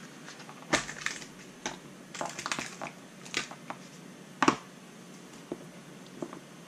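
Small cardboard product box being opened and handled: scattered clicks, taps and crinkling, with sharper snaps about a second in and again after four seconds.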